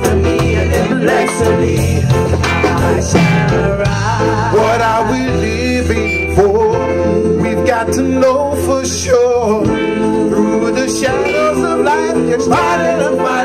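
A vocal group singing together, several voices at once, with a live band of bass, guitar and drums playing reggae.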